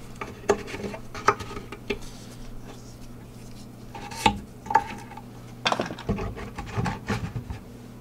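Light, scattered wooden clicks and taps as compressed-wood joining biscuits are dropped and pressed into slots in a pine hive box, the sharpest about halfway through. A steady low hum runs underneath.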